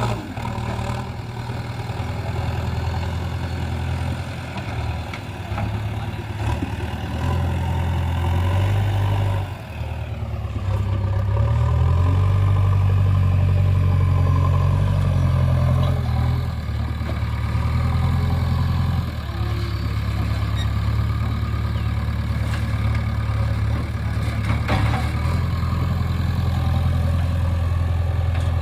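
Heavy diesel engine running steadily, dipping briefly, then revving louder and higher for several seconds about halfway in before settling back to a steady run.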